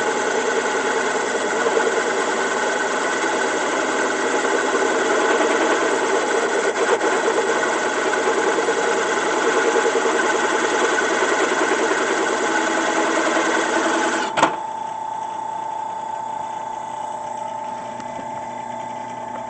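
Drill press running under power with a steady machine drone. About fourteen seconds in there is a sharp clunk, after which it runs on more quietly with a single steady hum.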